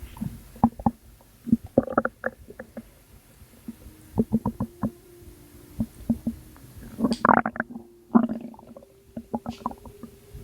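Wet gurgling from the belly: an irregular run of short bubbly pops and squelches, with a louder, denser cluster about seven seconds in.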